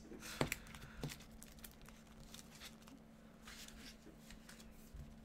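Faint rustling and handling of a cardboard trading-card box, with two sharp clicks in the first second and light scattered ticks after.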